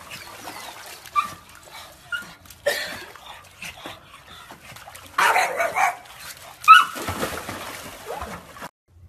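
A small dog barking in short, high yips, a few spread out with the loudest near the end, along with bursts of splashing water as dogs go into a swimming pool, the biggest about five seconds in.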